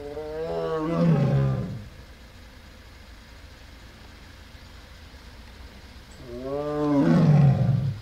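An Amur tiger roaring twice, about six seconds apart. Each roar lasts under two seconds and rises then falls in pitch, over a steady low rumble.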